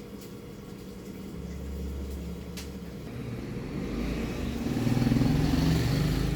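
A motor vehicle passing by, its engine rising to a peak about five seconds in and then fading away.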